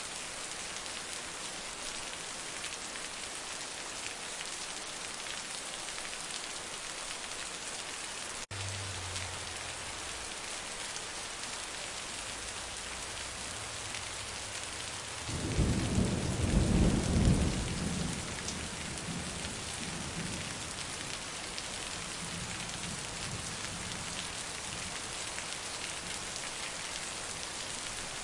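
Heavy rain falling steadily, with a rumble of thunder a little past halfway: loud for two or three seconds, then fading away.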